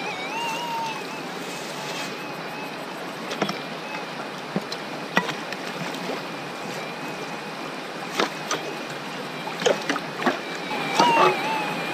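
Shallow creek water running over gravel, with scattered short splashes and knocks as hands reach into the water and work the streambed.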